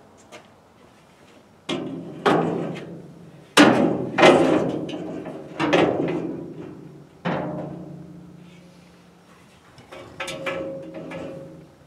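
Metal clanking in the steel bed frame of a 1963 Chevy C10 pickup as parts are knocked against the crossmembers while being fitted. There are about eight sharp clangs, each ringing on and dying away over a second or more. The loudest come around four seconds in, with a last pair near the end.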